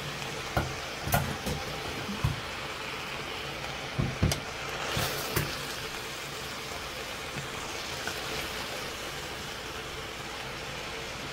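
Chopped onions and bell peppers frying in oil in a large pot: a steady sizzle. A utensil stirring them knocks against the pot several times in the first half.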